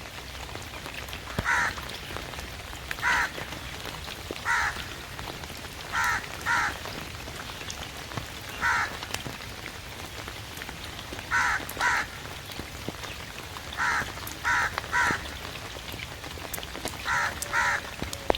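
Raven giving short, harsh calls, singly and in quick pairs, about a dozen in all, over the steady hiss of falling rain.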